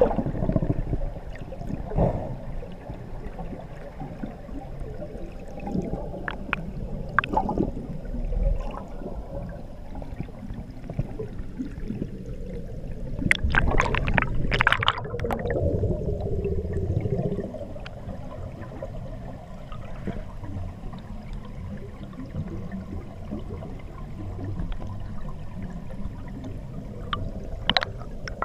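Scuba divers' exhaled air bubbles heard underwater: a muffled gurgling rumble with scattered small pops, swelling into a louder burst of bubbling about halfway through.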